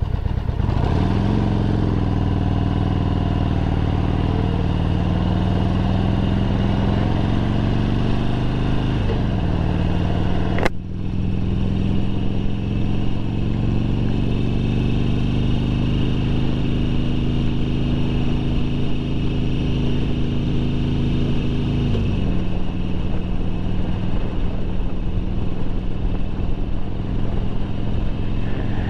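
Harley-Davidson Sportster 1200's air-cooled 1200 cc Evolution V-twin pulls away from a standstill. Its pitch climbs, falls at an upshift about nine seconds in, climbs again and falls at a second upshift about twenty-two seconds in, then runs steadily at about 40 mph. A short sharp click comes about eleven seconds in.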